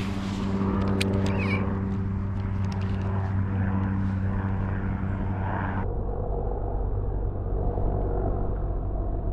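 A steady engine drone that holds one constant pitch, with a few faint clicks in the first two seconds.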